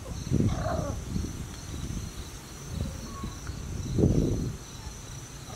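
Insects chirring in a steady high drone, under a low rumbling noise that swells about half a second in and again about four seconds in, with a brief high-pitched call near the start.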